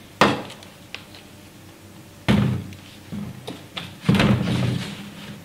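Knocks and thuds of plastic kitchen containers, a cup and a jerrycan, being handled and set against a counter. There is a sharp knock at the start, a light click, a heavier thud a couple of seconds in, and a longer clatter just after four seconds.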